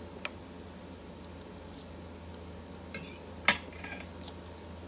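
A few sharp clinks of eating utensils against a bowl, with the loudest about three and a half seconds in, over a low steady hum.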